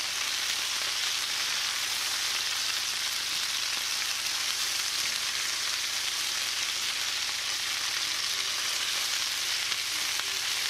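Chicken pieces and sliced onion sizzling steadily in hot oil and butter in a cast-iron skillet while being turned over with tongs.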